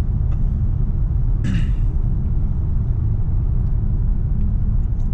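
Steady low road and engine rumble heard inside a Chrysler car cruising at highway speed. A short breathy hiss comes about a second and a half in.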